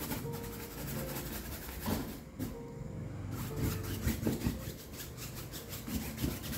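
A wide paintbrush scrubbing white acrylic paint across a stretched canvas in repeated back-and-forth strokes, a rubbing, scraping sound.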